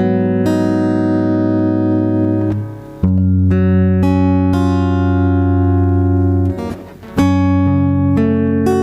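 Karaoke backing track with no vocals: sustained guitar-like chords that change every one to three seconds, with a brief drop between chords near the end.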